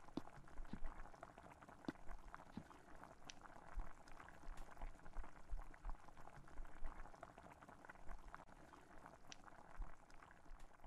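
Faint, steady crackling with many scattered sharper clicks.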